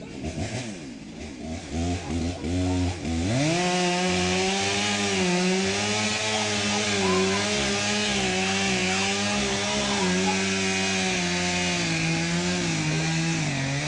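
Chainsaw revved in a few short blips, then held at full throttle from about three seconds in as it cuts into wood; the revs waver under load and drop a little near the end.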